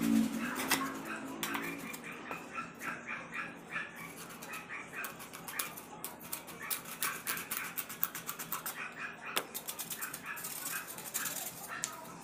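A screwdriver tip, then a scissor point, twisted and scraped in a small hole in a hardplex fibre-cement board to widen it. Rapid gritty scraping strokes with high squeaks come in two spells.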